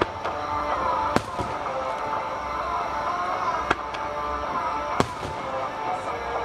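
Aerial fireworks shells bursting: four sharp bangs, the loudest about five seconds in, over a steady bed of music.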